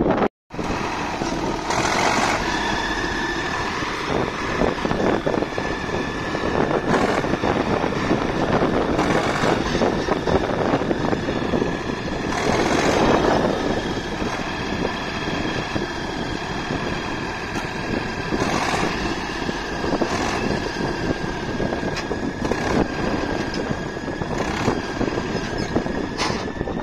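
Tractor's diesel engine running steadily, with a constant high whine over it and louder surges every few seconds.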